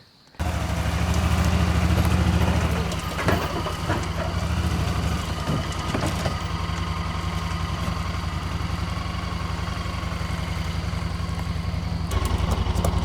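A motor vehicle's engine running steadily with a low, even drone. It comes in abruptly about half a second in, is loudest for the first couple of seconds, and has a few faint knocks over it.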